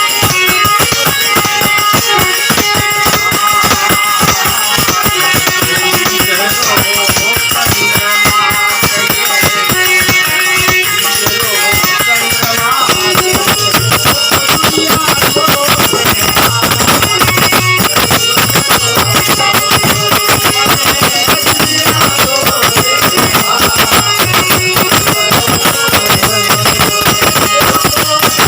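Loud devotional bhajan music with a fast, steady beat of hand percussion such as a tambourine.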